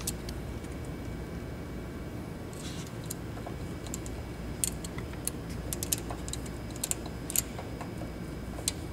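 Light metallic clicks and rattles of a roller timing chain being handled and seated over the cam sprocket by hand, scattered and bunched together in the middle, over a steady low hum.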